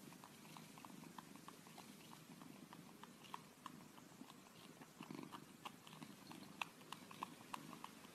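Cat sucking on a person's finger: faint, irregular little wet sucking clicks, coming more often after about five seconds, over a faint low purr.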